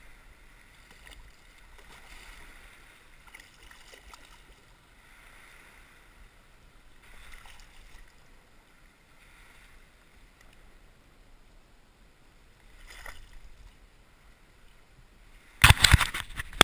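Shallow water sloshing and lapping as a striped bass is held in the water and released by hand, with a small splash late on as the fish kicks away. Near the end there is a short, much louder burst of rough noise.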